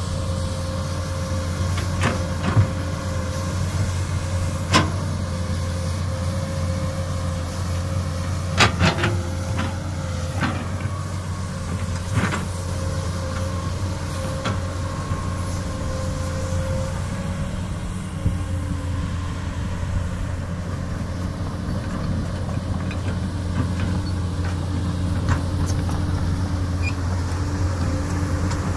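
Komatsu PC200 excavator's diesel engine running steadily under load, with a thin steady whine that fades out about two-thirds of the way through. Several sharp knocks cut through it, most in the first half, the loudest a quick cluster about nine seconds in.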